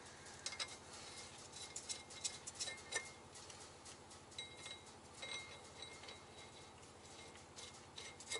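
Faint, light metallic clinks and taps as a rear main seal installer tool and its bolts are fitted by hand onto the rear of a truck diesel's crankshaft; a few sharp clicks, some ringing briefly, come in small clusters.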